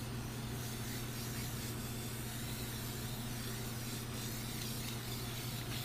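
Aerosol cleaner spraying in a steady hiss onto a freshly turned lathe shaft to wash off the cutting oil, over a low steady hum.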